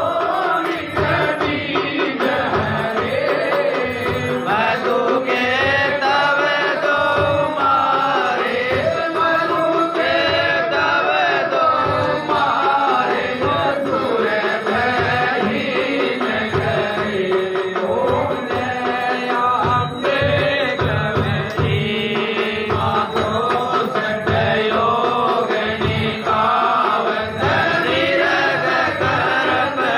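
Hindu aarti hymn: voices singing a devotional chant over a steady drum beat.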